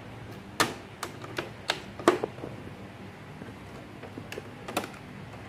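Piano-key transport buttons of an unplugged Sony cassette boombox being pressed and released by hand: a series of sharp mechanical clicks, about six in the first two and a half seconds, then a few more near the end.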